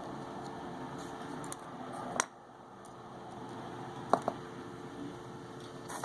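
A few sharp small clicks of a tool and parts being handled while a smartphone is taken apart: one about two seconds in and a quick double click about four seconds in, over a faint steady hiss.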